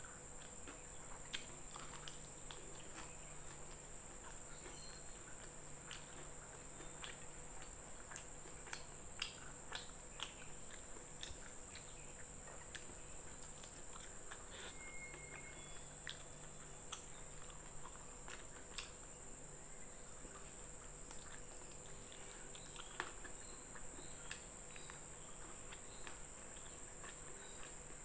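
Close-up eating sounds of a person eating rice and fried chicken by hand: scattered short, sharp clicks and smacks of mouth and fingers, over a steady high-pitched hiss in the background.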